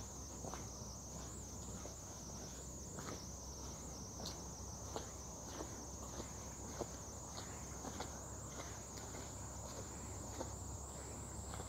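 Footsteps on concrete at a steady walking pace, over a continuous high-pitched whine and a low steady rumble.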